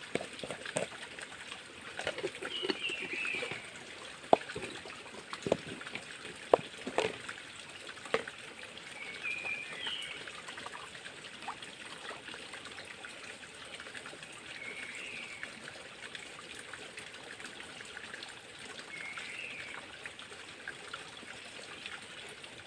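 Creek water trickling steadily, with sharp clicks and knocks of plastic jars being handled, mostly in the first eight seconds. A short high call repeats about every five seconds over the water.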